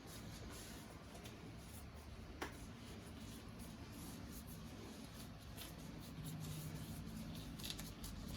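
Quiet scraping and rustling of food being mixed by hand in a bowl, with a single click about two and a half seconds in.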